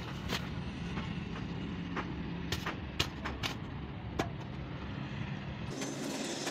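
A steady low motor hum with a few sharp clicks and knocks scattered through it; the hum drops away near the end.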